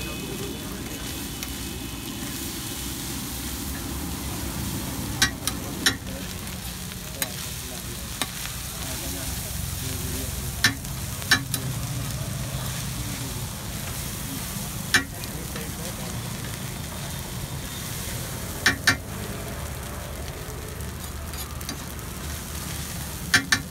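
Egg pulao rice being stir-fried on a large flat griddle: a steady sizzle with a low hum underneath. A metal spatula tosses the rice and clinks sharply on the griddle about ten times at uneven intervals.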